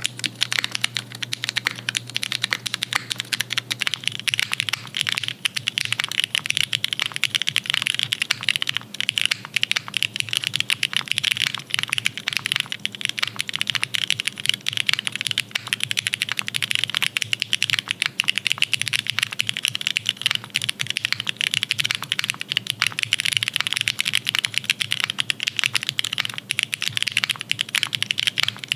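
Fast, continuous typing on a custom-built mechanical keyboard: a steady stream of rapid keystroke clacks with no real pauses.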